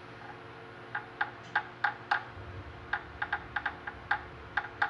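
About a dozen light, sharp taps at an irregular pace, starting about a second in, with a faint low hum underneath. They are typical of a part being tapped into alignment while it is checked with a dial indicator.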